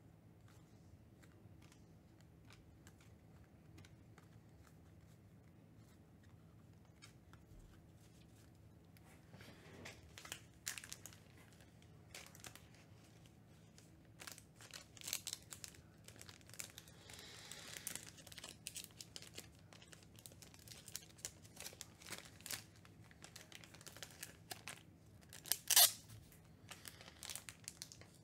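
Trading-card pack wrappers being torn open and crinkled, and cards being handled. It is quiet for the first several seconds, then irregular crackling and tearing begins, with the loudest rip near the end.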